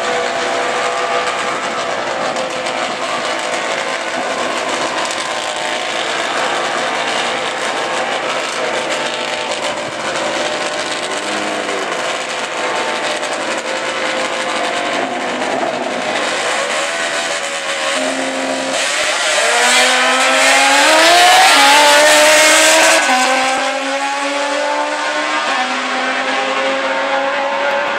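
Drag-racing motorcycle engines running and revving at the starting line, then a hard launch about 19 seconds in that is the loudest part, the engine pitch climbing in steps as the bikes pull away.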